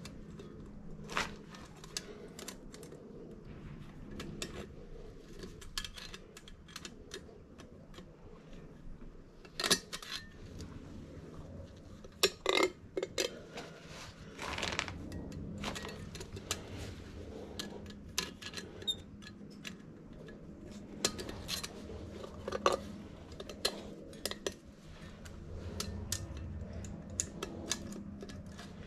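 Scattered metallic clinks and knocks of tools and metal parts being handled, with a louder ringing clank a little before the middle.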